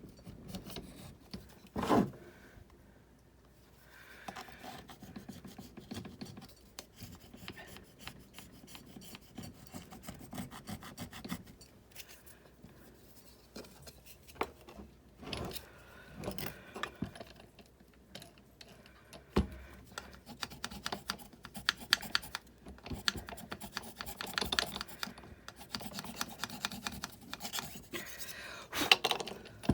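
Scrubbing and rubbing grime off the parts of a disassembled Sizzix Big Shot die-cutting machine: long runs of rapid scratchy strokes, busiest in the second half, with a couple of sharp knocks of parts being handled.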